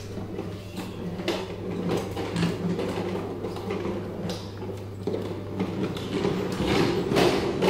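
Plastic wheels of a ride-on swing car rolling and rattling over a tiled floor, with irregular knocks, over a steady low hum.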